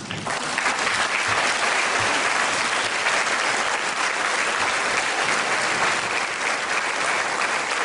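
Audience applauding steadily: a dense wash of many hands clapping.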